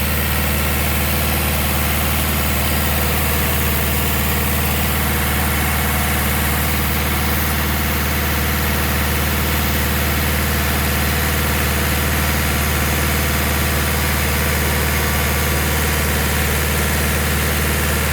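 Olin 575 trailer concrete pump's engine running at a steady speed, with an even low hum, while the pump is switched on and working.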